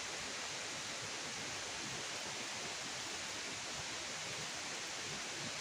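Steady, even hiss of outdoor night ambience, with no distinct events.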